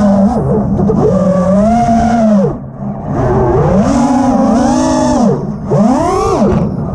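FPV freestyle quadcopter's brushless motors and propellers whining, heard from the onboard camera, on a 6S battery. The pitch keeps sweeping up and down with the throttle, and it cuts back briefly about two and a half seconds in and again about five and a half seconds in.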